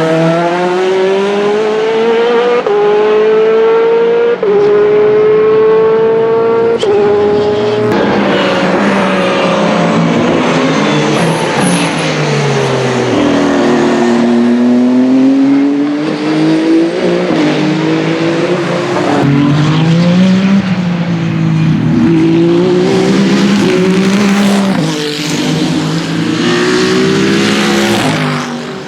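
WEC Hypercar prototype race cars at full throttle. One climbs in pitch through three quick upshifts, then several more pass in turn, their engine notes sweeping down and rising again as they go by and shift.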